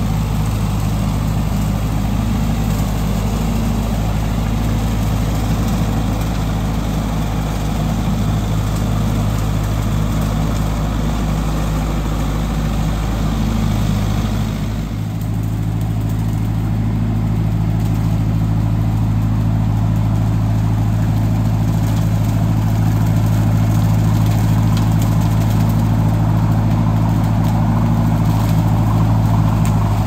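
Farm tractor engine running steadily under load while its rotary cutter mows tall grass and weeds. There is a brief dip in the sound about halfway through, then it runs steady again.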